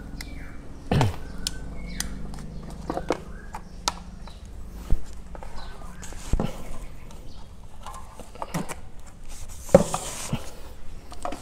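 Handling noise from bare amplifier circuit boards and their wiring: irregular knocks and clicks as a board is lifted, turned and set down. A faint low hum runs through the first half, and there is a brief rustle near the end.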